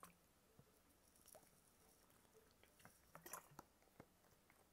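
Near silence with faint mouth and drinking sounds, a person sipping and swallowing water, with a few small clicks that cluster a little past halfway.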